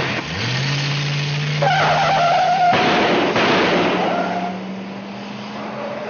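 A car engine revving hard as the car speeds away, with tyres squealing from about a second and a half in; the sound then fades.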